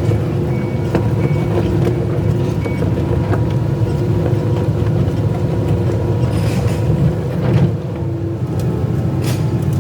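Excavator's diesel engine running steadily under work, with a few short knocks or clanks in the later seconds.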